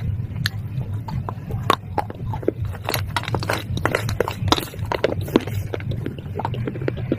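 Close-up crunching of hard baked-clay pot pieces being bitten and chewed: a quick irregular run of sharp cracks, several a second, over a steady low hum.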